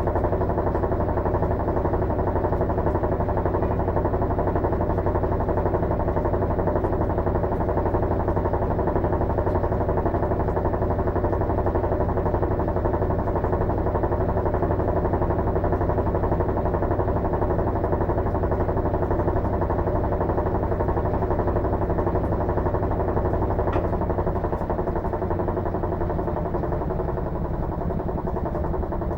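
Electrolux LM13Q top-load washing machine spinning at a steady speed, its motor and drum giving a continuous hum with several steady tones. A little before the end the low hum shifts and the sound eases slightly.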